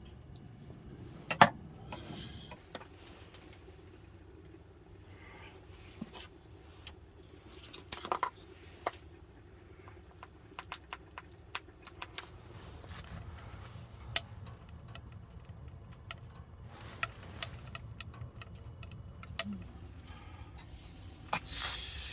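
Scattered light clicks, taps and clinks of small utensils and cookware being handled, the sharpest about a second and a half in, over a faint low steady hum; a short rustling hiss comes near the end.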